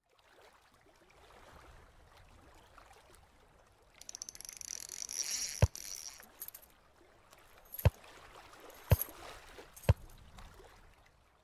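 Sound effects for a fishing-lure intro animation over a faint, water-like background. A fast ticking whir lasts about two seconds and ends in a sharp knock, and three more sharp knocks follow about a second apart.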